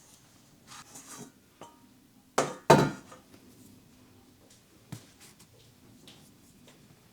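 Kitchen dishes and utensils being handled: two loud sharp knocks in quick succession about two and a half seconds in, with softer clatter before them and a single click a couple of seconds later.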